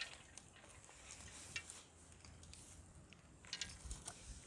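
Faint scrapes and a few light clinks of a perforated metal rice skimmer scooping drained rice and tipping it into a steel pot.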